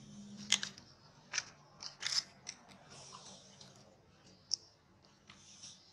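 Dry fallen leaves crackling in scattered sharp clicks and short rustles as macaques shift about on the leaf-strewn ground.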